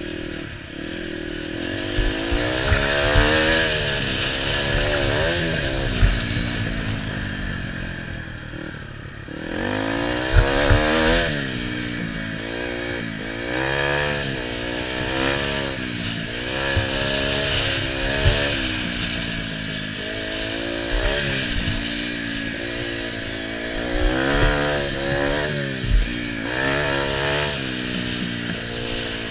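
KTM 250 EXC two-stroke dirt bike engine under hard riding, its pitch climbing and dropping every second or two as the throttle is worked. The throttle closes briefly about nine seconds in before the engine pulls again. Occasional sharp knocks from the bike over bumps.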